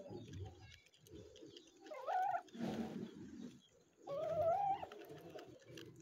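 Domestic chickens calling while feeding: two drawn-out, slightly rising calls, one about two seconds in and a longer one about four seconds in, with low rustling between them.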